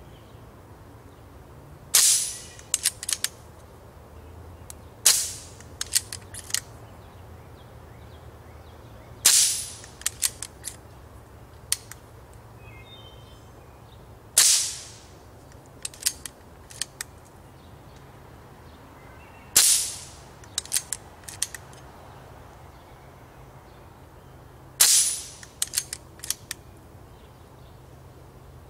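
Diana Stormrider Gen 2 .22 pre-charged pneumatic air rifle fired six times, a sharp crack every three to five seconds. Each shot is followed by a few quick clicks as the bolt is cycled to feed the next pellet from the magazine.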